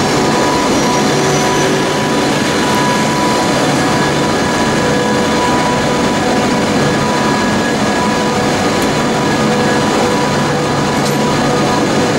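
Steady running noise of a moving passenger train heard from inside the carriage, an even rush and rumble with a few faint steady tones over it.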